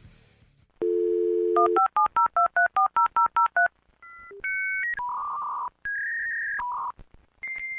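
Telephone dial tone, then a touch-tone keypad rapidly dialling about a dozen digits, followed by a string of electronic phone line tones and beeps at changing pitches.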